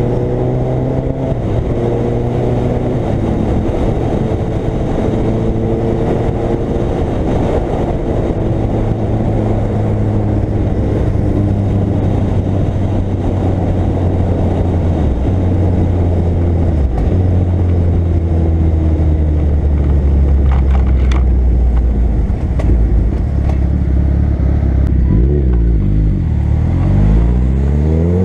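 Suzuki Hayabusa's inline-four engine pulling at road speed under wind rush. The engine note sags slowly. About three seconds from the end it dips, then climbs steeply as the bike accelerates again.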